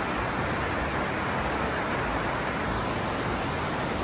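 Mountain creek rushing over rocks and shallow riffles: a steady, even rush of water.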